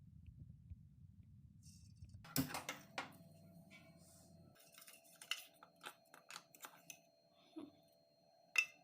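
Light clicks and clinks of utensils being handled: two sharp ones about two and a half and three seconds in, a run of light taps a little later, and a sharp click near the end. A low hum cuts off about halfway through, and a faint steady tone carries on under the clicks.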